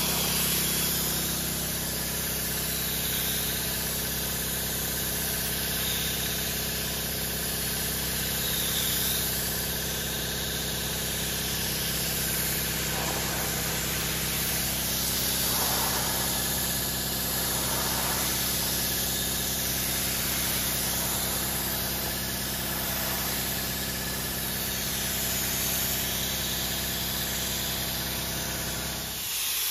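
3M Accuspray gravity-feed spray gun hissing as compressed air at about 35 psi atomises gelcoat, over a steady low machine hum. The hum drops out suddenly near the end.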